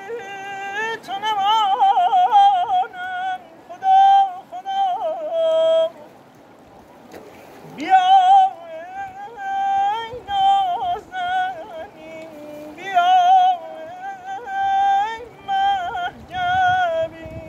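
A man singing unaccompanied Persian classical avaz, his voice breaking into the rapid, yodel-like tahrir trills of the style in long phrases, with a pause of about two seconds near the middle.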